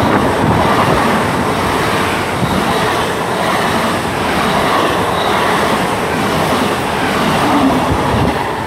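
GWR Class 800 Intercity Express Train running as empty stock through the station without stopping: a loud, steady rush of wheels on rail that eases off near the end.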